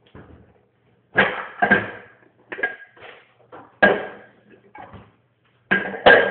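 Ceramic dishes knocking and clinking as they are handled and set down on a kitchen counter and dish rack. There are about eight sharp knocks, some in quick pairs, each with a brief ring.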